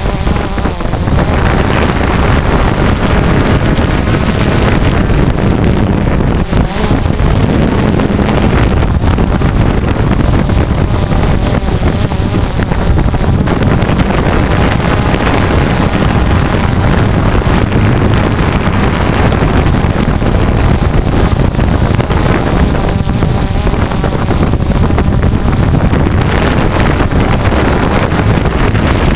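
Hexacopter's electric motors and propellers running steadily during a descent, heard through a camera mounted on the craft, with wind buffeting the microphone.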